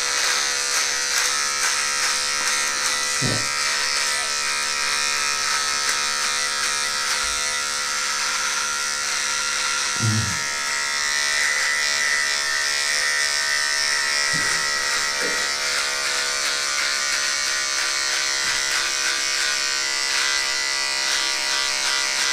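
Electric beard trimmer buzzing steadily while it trims facial and neck hair.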